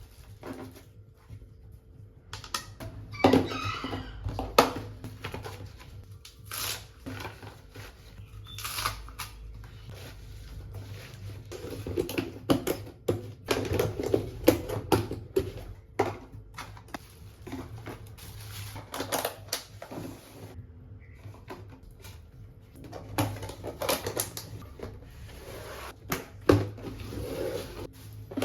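Groceries and containers being handled and put away in a fridge: irregular clicks, knocks and rustling.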